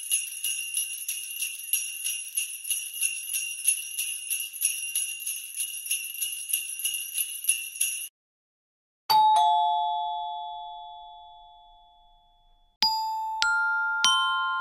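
Sleigh bells shaken in a steady rhythm, a bright jingling that stops suddenly about eight seconds in. After a short pause a single struck bell rings and slowly fades. Near the end, three quick strikes of bells at different pitches ring over one another.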